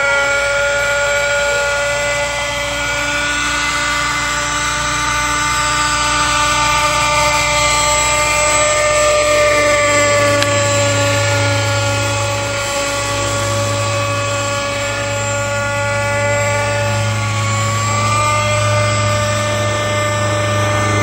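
Century Hawk Pro radio-controlled helicopter in flight, its motor and rotor giving a steady whine that drifts slightly up and down in pitch, with a low hum growing stronger about halfway through.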